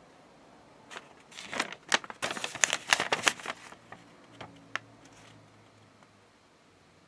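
Folded paper instruction sheet crinkling and rustling as it is handled and turned, a burst of sharp crackles from about one second in to nearly four, then a couple of faint ticks.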